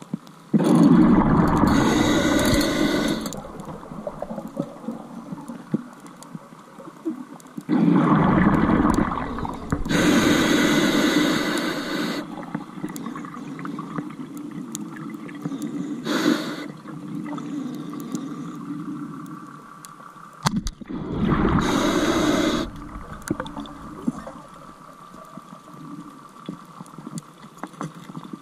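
Scuba diver breathing through a regulator underwater: three breaths about ten seconds apart, each a long burst of hissing and bubbling, with a faint steady hiss between.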